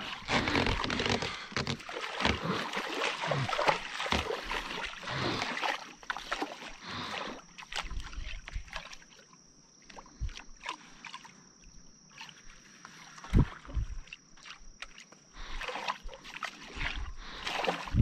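Water splashing and sloshing around a fishing boat, densest over the first several seconds, then scattered clicks and knocks from a spinning rod and reel being worked, with a faint steady high tone through the middle.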